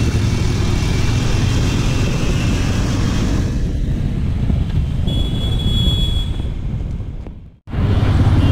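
Steady low rumble of a motorcycle riding in city traffic: engine, road and wind noise on the bike-mounted microphone. A thin high steady tone sounds for about a second around the five-second mark, and the sound cuts out abruptly for a moment about seven and a half seconds in.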